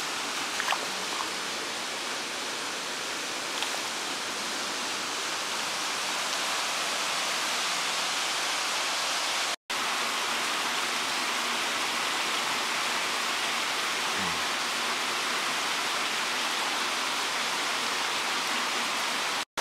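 Steady rush of a creek pouring over rock ledges and small cascades, cutting out for an instant about halfway through and again near the end.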